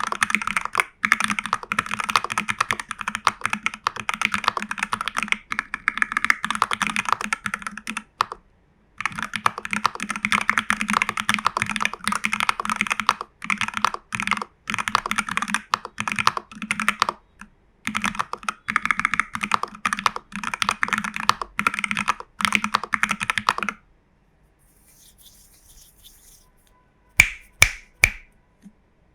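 Fast typing on a TU40 40% mechanical keyboard in a plastic case with case foam, PCB foam and a tape mod, fitted with Jelly Strawberry v3 switches and CRP Cyrillic R keycaps: a dense run of key clacks with a brief pause. The typing stops a little over halfway through, and three sharp, louder knocks follow near the end.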